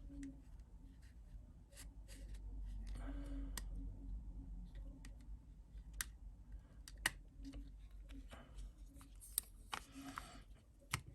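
Faint scattered clicks and light scraping of an iPhone 7's screen being prised away from its frame by hand.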